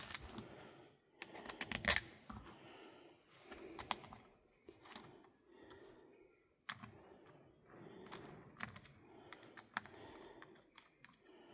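Faint, irregular clicks and taps of small metal and plastic parts being handled: the side plate being fitted back onto a cordless foot parer's head and its screws turned with an Allen key.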